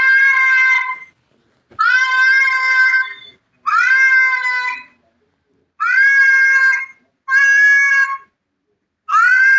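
A cat yowling in a series of drawn-out meows, about one every one and a half to two seconds, each rising at the start and then held for about a second. These are angry, almost word-like cries.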